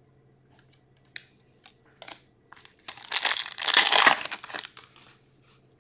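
Foil wrapper of a hockey card pack being torn open and crinkled by hand: a few light rustles, then loud crinkling for about two seconds from about three seconds in.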